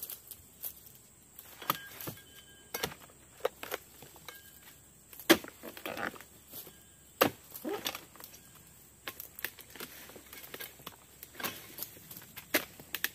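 Pole-mounted harvesting sickle hacking at oil palm fronds and fruit-bunch stalks: a run of irregular sharp cracks and knocks, the two loudest about five and seven seconds in.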